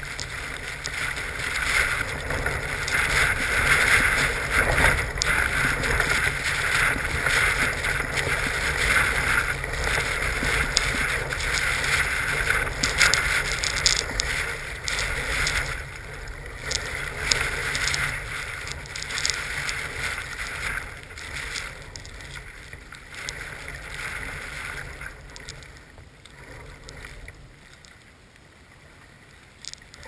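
Gusty snowstorm wind hitting the microphone, a rushing noise with a low rumble that swells and falls in gusts. It is loudest in the first half and eases off toward the end.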